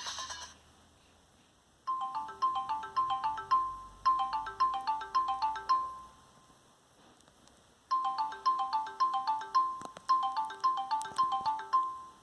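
Samsung Galaxy phone ringtone: a short chiming melody of quick, descending note figures, played twice with a pause of about two seconds between the two plays.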